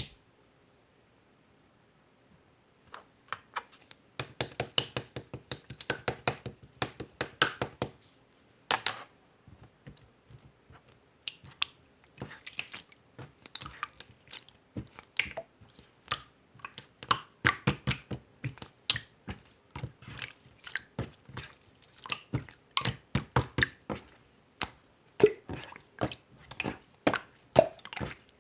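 Slime being pressed, stretched and poked by hand, making sticky wet clicks and pops. It is quiet for the first few seconds, the clicking is densest for a few seconds after that, then it goes on more irregularly.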